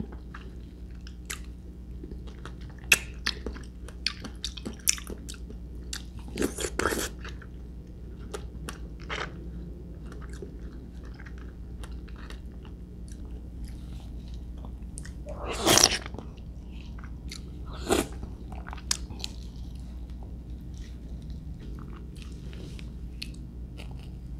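Close-up eating sounds of star apple flesh taken from a spoon and chewed: a scatter of small wet mouth clicks, with louder bursts of chewing about 7 and 16 seconds in and a sharper click near 18 seconds.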